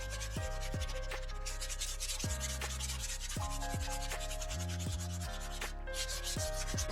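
Continuous abrasive rubbing, as of sanding or scrubbing rust from bicycle parts, with background music playing over it.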